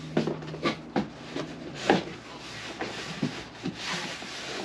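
Hands rummaging through packaging: rustling and rubbing with scattered light knocks, irregular throughout.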